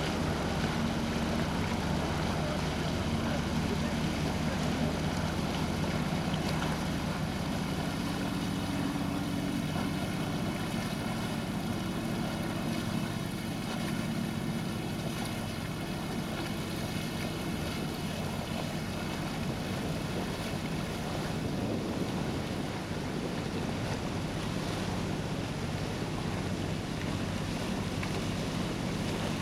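A boat's engine running steadily under a constant rush of water and wind noise on the microphone; the engine hum is stronger in the first half and eases about halfway through.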